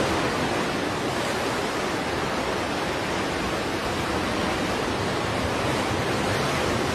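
Steady, even rushing noise of sea surf, with no separate waves breaking or splashing out from it.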